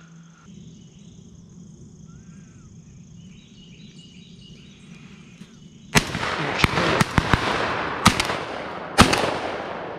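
12-gauge shotgun fire: a loud shot about six seconds in, then several more shots in quick succession over the next three seconds, each followed by a rolling echo.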